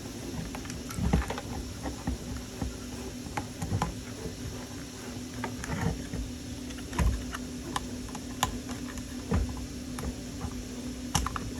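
Small plastic parts clicking, knocking and rubbing at irregular intervals as a flexible TPE printed track is stretched over the drive gear and rollers of a model skid steer, over a steady low hum.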